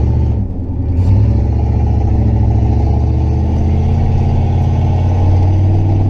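Pontiac Firebird's engine running through a turn, heard from inside the cabin. The engine note dips briefly, picks up again about a second in, then holds steady.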